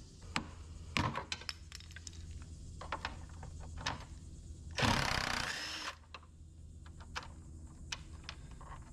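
DeWalt cordless drill running for about a second, spinning out a 10 mm bolt behind a grille plate. Scattered light clicks and taps of tools on the plastic trim come before and after it.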